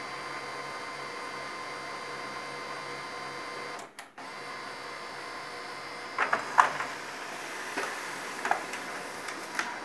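HP LaserJet P1606dn laser printer working through a print job: a steady mechanical whine with several fixed tones, then, from about six seconds in, a series of sharp clacks from its paper-handling mechanism as a page is fed and printed.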